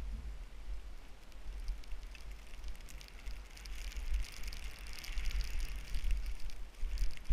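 Skis hissing and crackling through soft snow on a downhill run, louder from about four seconds in, over a steady low rumble of wind on the camera microphone.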